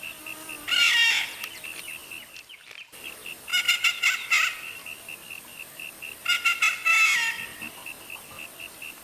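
A bird gives three loud calls, each about a second long, over a faint high chirp that repeats about four times a second.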